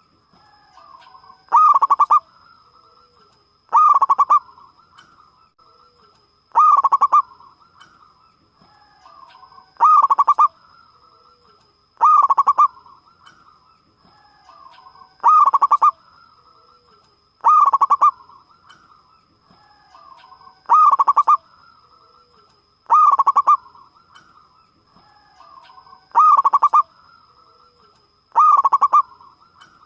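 Zebra dove (perkutut) singing: loud phrases of rapid cooing notes, repeated about every two to three seconds, with softer cooing notes between the phrases.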